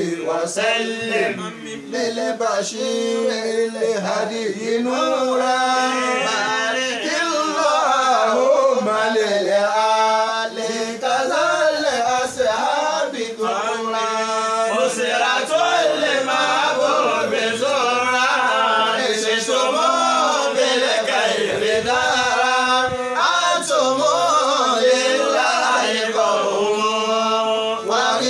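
Male voice singing an Islamic devotional song (nasheed) in a chanting style, with long wavering, ornamented notes over a steady low held note.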